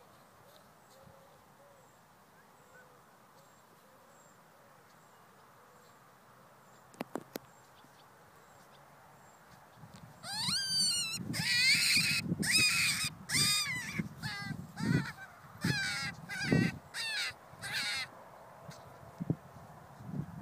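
Wild rabbit screaming in distress while held in a predator's bite: a run of about ten harsh, high screams starting about halfway through, each arching up and down in pitch. They follow a quiet stretch with a few faint clicks.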